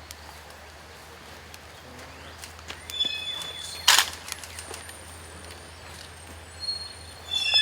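Quiet outdoor ambience with a steady low hum, a few short high chirps, and one sharp click about four seconds in.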